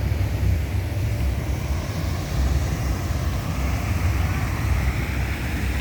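Busy street ambience: a steady low rumble of passing traffic mixed with wind buffeting the microphone.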